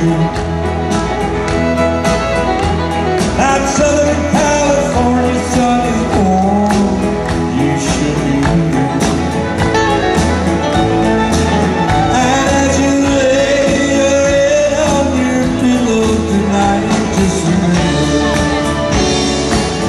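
Live country band playing with a steady beat: acoustic and electric guitars, fiddle and drums.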